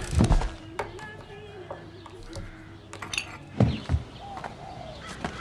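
Animated-film soundtrack: a few soft, low thuds, at the start and again about three and a half seconds in, over faint bird chirps.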